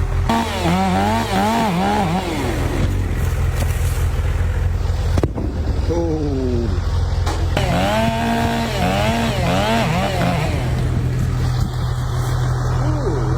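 Two-stroke chainsaw idling, then revved up in several spells, its pitch rising and dropping again and again as the throttle is worked and the chain bites into wood.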